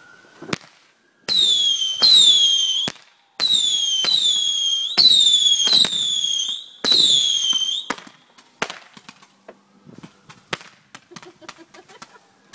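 Whistling fireworks firing in quick succession: about seven shrill whistles, each starting with a sharp crack and dipping slightly in pitch. After that come scattered pops and crackles.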